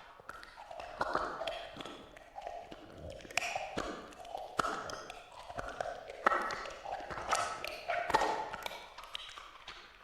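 Horror sound effect: an eerie, voice-like sound with many sharp taps and knocks through it.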